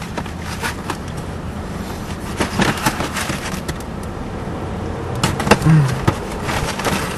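Cardboard donut box being handled, with a few sharp crinkles and taps, over the steady low hum of a car's engine heard inside the cabin.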